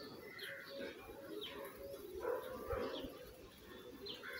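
Birds in the background: short high chirps about once a second over a low, steady cooing like that of doves.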